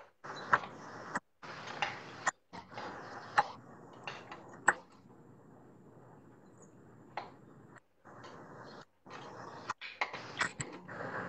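A metal slotted spoon clinking against a small steel frying pan, a scattering of sharp clinks, over a steady hiss of deep-frying batter fritters. The sound comes through a video call and cuts out briefly several times.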